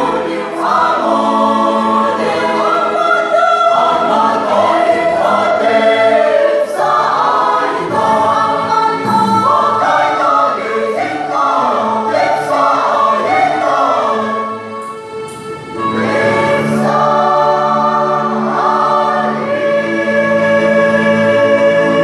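Mixed choir of men and women singing a sacred song in several parts. The singing breaks off for about a second around fifteen seconds in, then resumes with long held chords.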